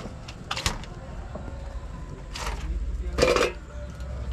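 Crows cawing a few times, short harsh calls with the loudest about three seconds in, over a steady low hum.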